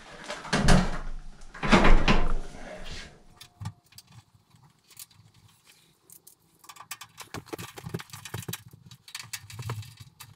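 Sheet-metal cabinet of a direct vent propane wall heater bumping and scraping as it is lifted onto its wall bracket: two loud bursts in the first three seconds. After that, faint small clicks and rattles of screws and a screwdriver being handled.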